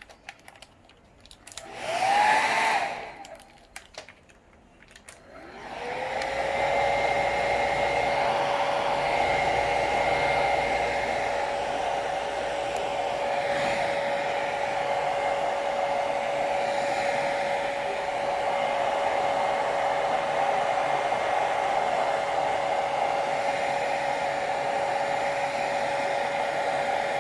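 Hair dryer switched on for about a second and off again, then switched on a few seconds later. Its motor whine rises as it spins up, then it runs steadily with a rush of blown air.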